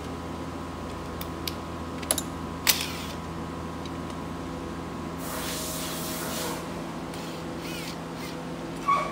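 Workshop bench work: a few sharp metal clinks of parts or tools over a steady fan hum, then a hiss of spray lasting about a second, about five seconds in. A short, loud, high squeak comes near the end.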